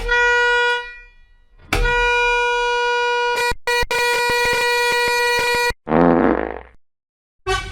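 Digitally edited variations of a bus air horn sound effect. A single horn note fades out within about a second and a half. A steady horn note about four seconds long follows, broken twice by brief cut-outs. Then comes a shorter, lower, distorted version lasting about a second that stops abruptly.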